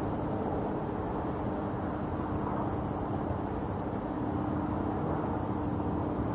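An insect chirping in a steady, even rhythm of high pulses, a few a second, over a faint steady low hum and outdoor background noise.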